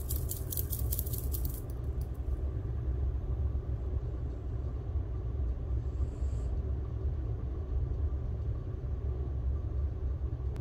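Steady low background rumble with no speech. A quick cluster of light clicks sounds in the first second or so.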